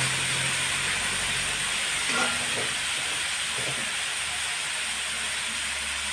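Marinated pork belly slices sizzling steadily in a hot wok as they are pan-grilled. A brief light clink comes about two seconds in.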